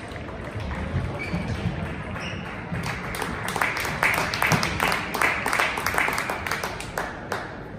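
Table tennis rally: the plastic ball clicks off the bats and the table in a quick run of sharp knocks, often in pairs, starting about three seconds in and stopping shortly before the end.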